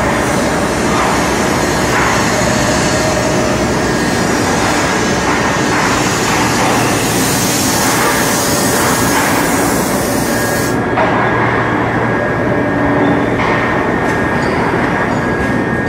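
Steady loud din of an automatic foundry moulding line and its conveyor running, with a high hiss that cuts off suddenly about eleven seconds in.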